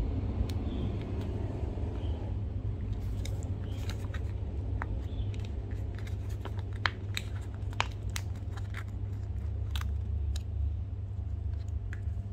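Irregular small crisp clicks and crackles, scattered from about three seconds in, over a steady low hum.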